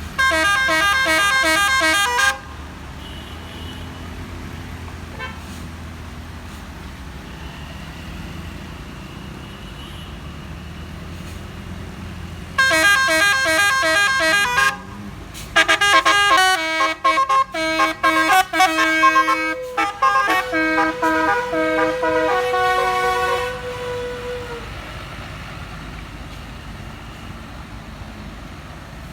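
Bus 'telolet basuri' musical air horn sounding in three bursts: a rapid pulsing chord at the start, another about twelve seconds later, then a longer run of changing notes that ends on a held lower note fading away. Vehicle and road noise runs underneath between the blasts.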